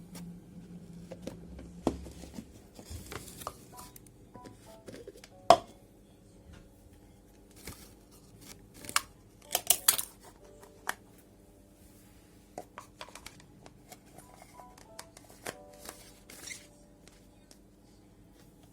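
Scattered clicks, taps and short rustles of objects being handled by hand, with a sharper knock about five seconds in and a quick cluster of clicks near the middle, over soft background music.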